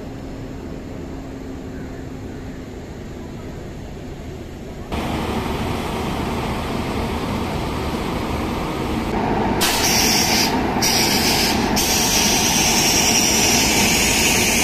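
WAP-7 electric locomotive standing at a platform, its machinery running as a steady hum. The hum steps up sharply about five seconds in, and a loud steady hiss joins about ten seconds in, dropping out briefly twice.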